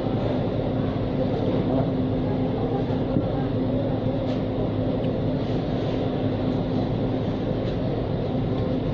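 Steady machine drone: an even low rumble with a constant hum that does not change, and a few faint ticks over it.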